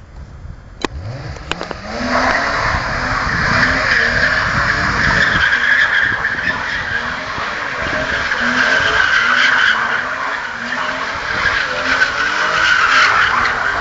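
BMW E36 M3 doing doughnuts: its straight-six engine revs up, then from about two seconds in the tyres squeal continuously while the engine note rises and falls in quick repeated surges.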